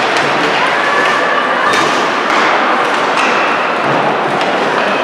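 Ice hockey play in a rink: sharp knocks and thuds of sticks and puck against the ice and boards over a steady wash of skate and arena noise.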